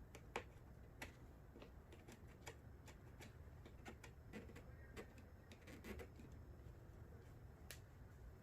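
Faint, scattered small clicks and light rubbing from a squeegee being worked over wet vinyl film to push the water out. The sharpest clicks come about half a second in and again near the end.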